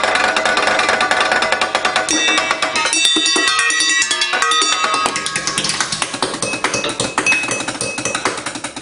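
Fast drumming with chopsticks on kitchen pots and pans, a dense run of quick strikes. About two seconds in, some struck metal items ring with clear bright tones for a few seconds.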